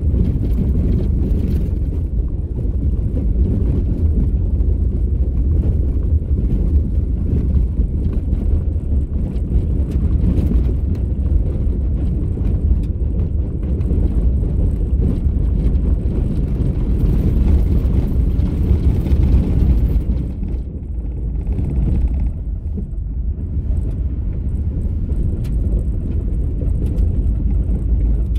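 Car driving on a gravel road: a steady low rumble of tyres and engine, easing slightly for a few seconds about two-thirds of the way through.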